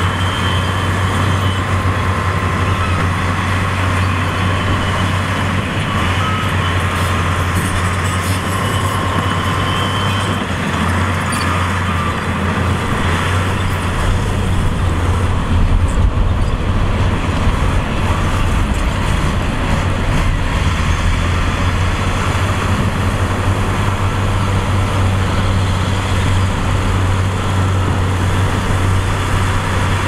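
Diesel engines of a Komatsu crawler bulldozer and a dump truck running steadily under load, a constant low drone. A deeper rumble comes in about halfway through.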